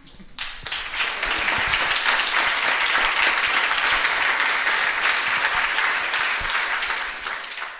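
Audience applauding steadily, starting about half a second in and fading out near the end.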